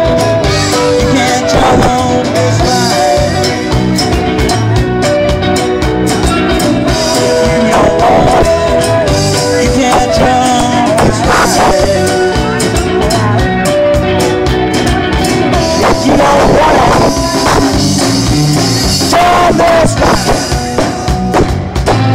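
Live rock band playing loudly through the stage PA: electric guitars, keyboard and drum kit, with sustained melody lines over a steady beat.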